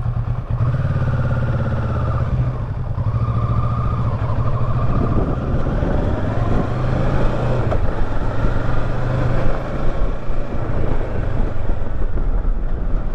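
A 2018 Kawasaki Versys 650's parallel-twin engine pulling the bike up a loose-gravel dirt slope. Its pitch wavers up and down with the throttle.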